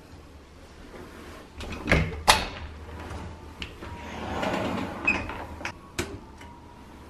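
A frosted-panel folding bathroom door being opened by hand: two sharp clicks about two seconds in, then a swell of noise as the panels slide and fold back, and a few light knocks near the end.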